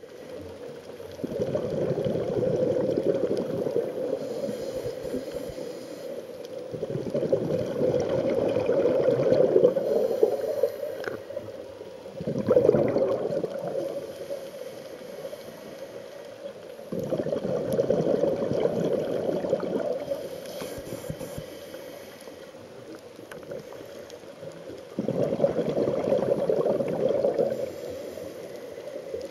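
Scuba diver breathing through a regulator, heard underwater: bursts of exhaled bubbles lasting a few seconds each, five in all, with quieter stretches between breaths.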